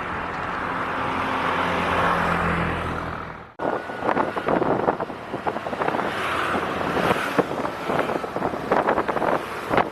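Tuk-tuk's small engine running steadily under wind noise. After an abrupt cut about three and a half seconds in, a rattling ride follows with many irregular clicks and knocks over the wind.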